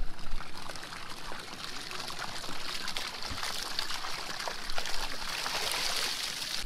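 Water splashing and pouring out of a wire-mesh pinfish trap as it is hauled up out of the sea, the pouring strongest near the end.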